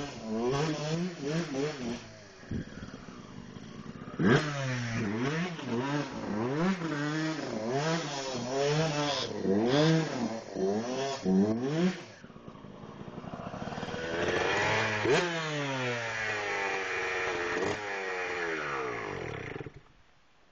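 Yamaha YZ125 two-stroke single-cylinder dirt bike riding laps, its engine revving up and down again and again as the throttle is worked. Later it comes in loud and close, and the engine cuts off shortly before the end.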